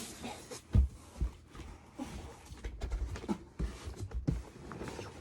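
Packaging being handled: a plastic bag crinkling and rustling, with a few knocks and thumps, the loudest about a second in.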